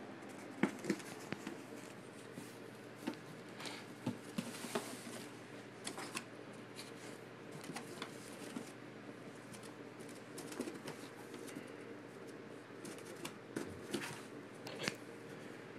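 Irregular taps, scratches and rustles as a cat moves and paws inside a cardboard box, with claws catching on the cardboard, over a faint steady hum.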